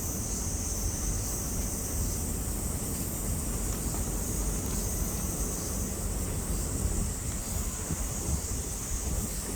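Wind buffeting the microphone: an uneven low rumble, with a steady high hiss above it.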